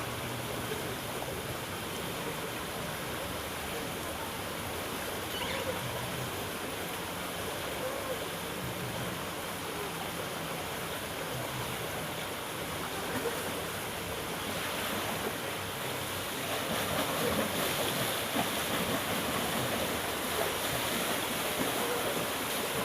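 Steady rush of moving and splashing swimming-pool water, growing louder about two-thirds of the way in.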